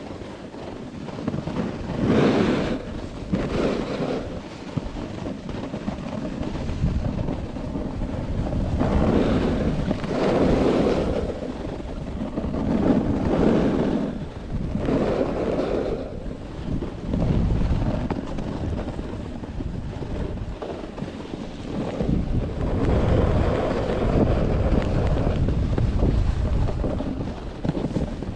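Wind rushing over the microphone together with the scrape of sliding over packed snow on a groomed ski run. The noise swells and fades every second or two.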